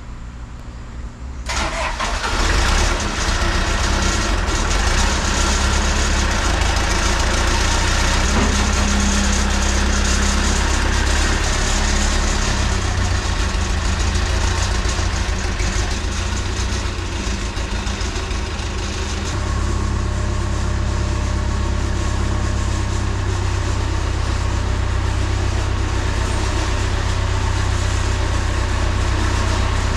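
Backhoe loader's diesel engine catching about a second and a half in, then running steadily, with a slight change in its note about two-thirds of the way through.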